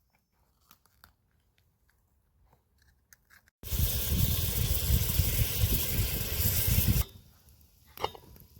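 Liquid stock poured into a cooking pot: a loud rushing, splashing noise that starts abruptly about three and a half seconds in and stops suddenly about three seconds later, after a few faint clicks of kitchen handling.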